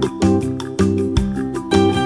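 Background music with strummed acoustic guitar and a steady beat.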